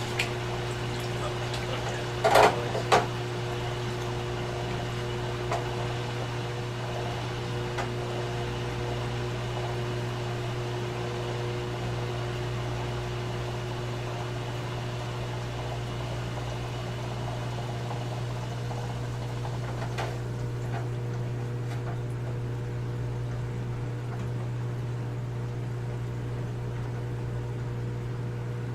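Aquarium sump pump and plumbing running: a steady low hum with water trickling through the system. A few sharp knocks about two to three seconds in and once more near twenty seconds.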